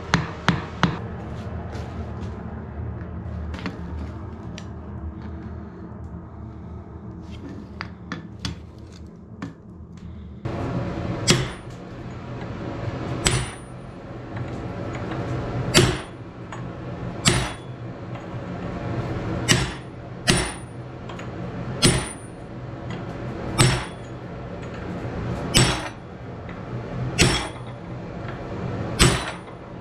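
Hand hammer striking a red-hot wrought iron axe head. A few quick blows at the start, then a steady low hum with faint clicks. From about ten seconds in, single sharp metallic blows land every one and a half to two seconds on the head clamped in a bench vise, each with a short ring.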